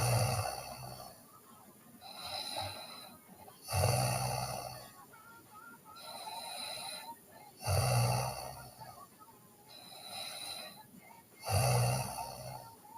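A sleeping person snoring in a steady rhythm: four loud, low snores about four seconds apart, each followed by a softer breath.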